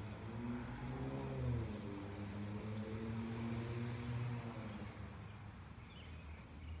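A motor vehicle's engine going by, a low hum that swells and eases in pitch and loudness for about five seconds, then fades.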